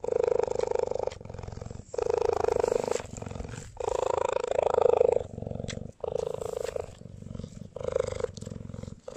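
Young cheetah purring, in stretches of about a second with brief breaks between them.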